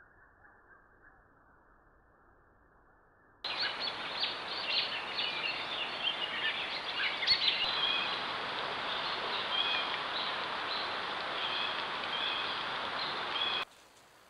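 Outdoor ambience from a trail camera: a steady hiss with small birds chirping and calling, starting abruptly about a quarter of the way in and cutting off suddenly near the end. Before it there is only faint background noise.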